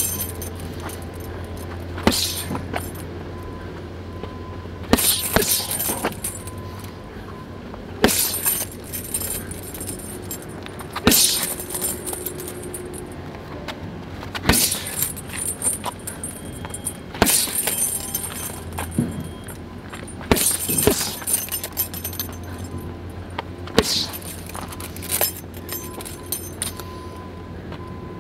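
Boxing-gloved jabs hitting a filled heavy punch bag every few seconds, sometimes two in quick succession, each set of hits setting the bag's hanging chain jangling. A steady low hum runs underneath.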